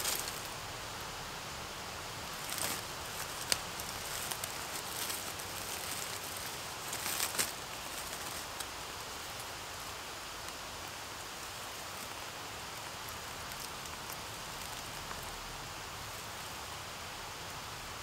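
Steady outdoor hiss with a few brief rustles of dry leaf litter and twigs from a person crouching and shifting on the forest floor; the loudest rustles come about 3 and 7 seconds in.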